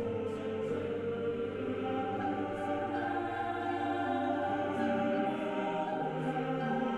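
Choral background music: voices holding long, slow notes in harmony, with a low held note that drops out about five seconds in.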